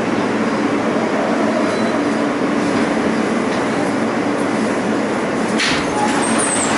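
New York City subway train heard from inside the car: steady running rumble and wheel noise as it slows along a tiled station wall, with a short burst of noise about five and a half seconds in and a faint high squeal near the end.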